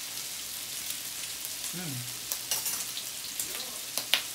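Sliced pork belly and beef sizzling steadily on a tabletop grill plate, the fat spattering. A brief hum from a voice about two seconds in, and a few sharp clicks of utensils near the end, the loudest just after four seconds.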